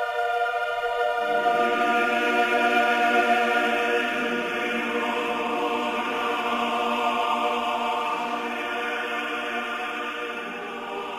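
Background music: a choir singing long held chords, with lower voices joining about a second in, fading out near the end.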